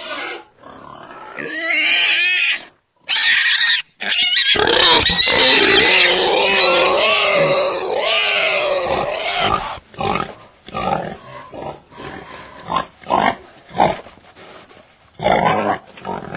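Wild boar calling: loud, wavering high-pitched squeals for several seconds, then a run of short grunts.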